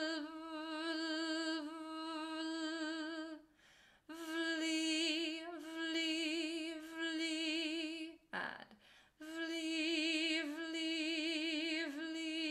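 A woman singing a held note on one pitch with vibrato, three phrases of about four seconds each with quick breaths between. It is a vocal exercise on the voiced V running straight into the L of 'lovely'.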